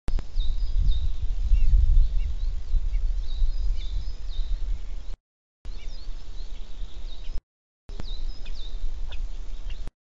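Birds chirping with short, high, repeated calls over a loud, uneven low rumble of wind on the microphone. The sound cuts out to silence briefly three times.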